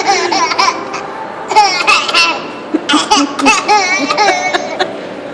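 Laughter in three bouts of about a second each, then quieter toward the end.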